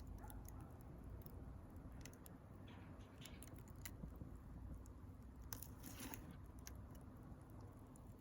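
Wood fire crackling quietly, with irregular sharp pops and snaps over a low steady rumble and a short cluster of louder crackles about five and a half seconds in.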